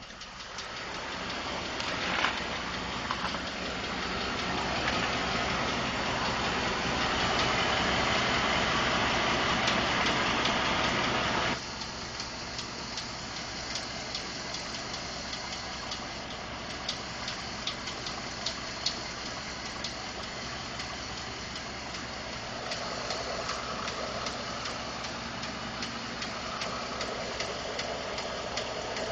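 2012 Ford F-150's 5.0-litre V8 idling with a rapid ticking knock over the running, which the owner has been told is normal engine noise such as injectors or the fuel pump. The sound is louder for the first twelve seconds or so, then drops suddenly to a quieter idle on which the ticking stands out.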